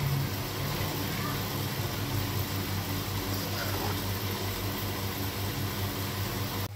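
Steady low hum with an even hiss from a running fan or motor, cutting off abruptly near the end.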